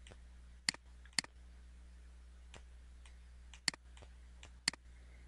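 Computer mouse button clicking: four sharp, separate clicks, two close together about a second in and two more a second apart later, over a faint steady low hum.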